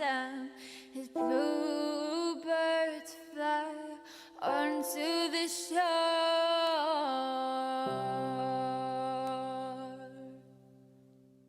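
A ballad's closing bars: a singer's voice holding and sliding between long notes over sustained accompaniment, then a held low chord entering about eight seconds in and fading out near the end.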